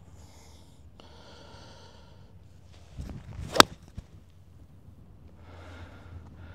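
Golf club striking the ball on a full approach swing: the swish of the downswing and then one sharp, crisp strike about three and a half seconds in. Faint breaths are heard before the swing.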